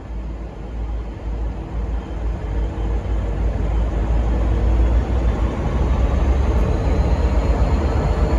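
V/Line N class diesel-electric locomotive's engine rumbling as it departs, growing steadily louder, with a faint whine slowly rising in pitch.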